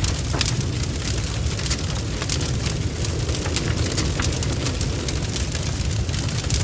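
Barn fire blazing: a steady low roar of flames with frequent sharp crackles and spitting pops scattered throughout.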